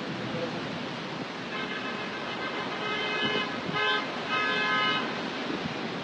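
Heavy rain pouring steadily. A vehicle horn honks several times, starting about a second and a half in and stopping near the end.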